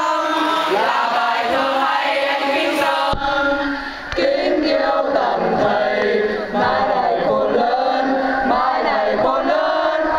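A large crowd of young men and women singing together in unison, many voices at once.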